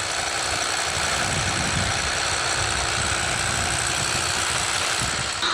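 Machinery running steadily, an even mechanical drone with a hiss, cutting off suddenly at the end.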